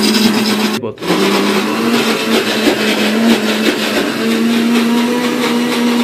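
Electric mixer grinder (mixie) running with its steel jar, grinding soaked lentils into garelu batter: a steady motor whine. It cuts out briefly about a second in and starts again, and its pitch steps up slightly about four seconds in.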